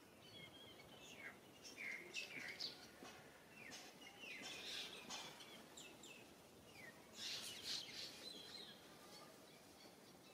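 Faint, high-pitched chirping animal calls: a run of short squeaks and brief downward-gliding calls, busiest between about one and eight seconds in, over a soft outdoor hiss.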